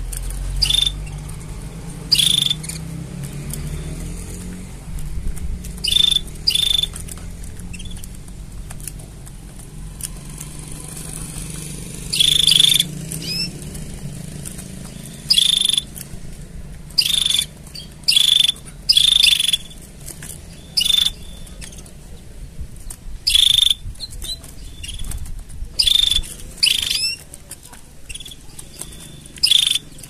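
Canaries calling: short, bright chirps at irregular intervals of one to a few seconds, some in quick pairs, with a longer gap in the first half. A low, steady hum runs underneath.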